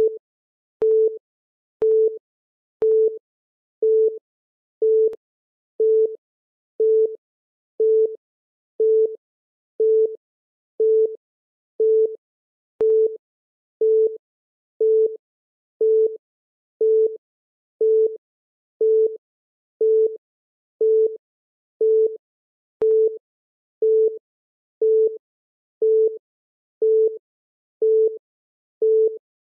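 Countdown timer's electronic beep: a short single-pitched tone repeating once every second, marking each second counted down.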